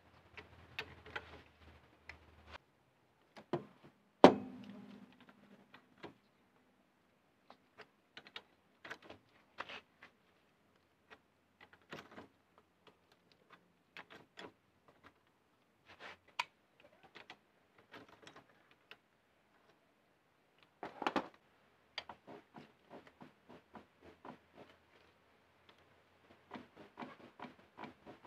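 Irregular metallic clicks and clinks of a socket and L-handle wrench working a rear wheel hub nut loose on a drum-brake hub, with one loud metal clank and brief ring about four seconds in and a short flurry of knocks later on.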